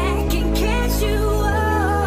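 Music from a pop/R&B song: held bass chords that change twice, under a gliding, wavering lead melody.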